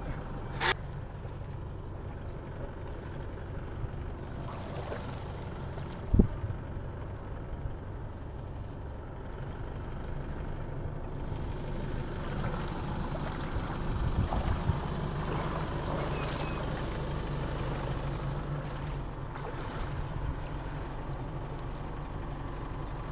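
Engine of the Isuzu ute idling steadily at the boat ramp. About six seconds in there is a single sharp knock. In the second half, water sloshes around a person wading through shallow water.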